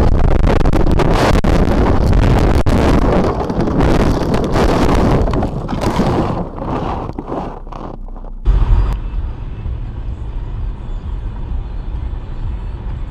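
Vehicle crash heard from a dash camera: a sudden burst of loud crashing and scraping noise that goes on for several seconds and slowly dies away. A sharp thump comes about eight and a half seconds in, followed by a steady low vehicle rumble.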